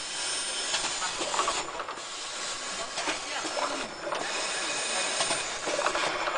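Pyramid tea-bag packing machine running at about 26 bags a minute: a steady hiss with irregular clicks and clatter from its mechanism.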